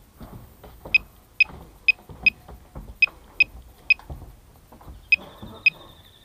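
Walkera F210 quadcopter giving short, sharp electronic beeps, nine in all at an uneven pace, the kind of start-up signalling it gives before flight. About five seconds in, a steady high-pitched tone sets in.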